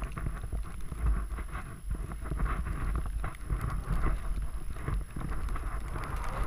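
Wind noise on the microphone of a skier moving fast, with skis hissing and swishing through deep powder snow.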